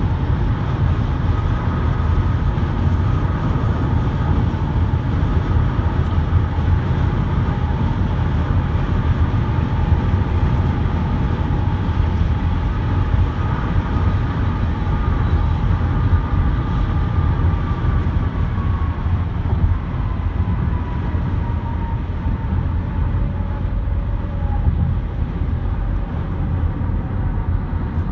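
Steady road noise from a car driving at highway speed. About two-thirds of the way in, a faint whine slowly falls in pitch.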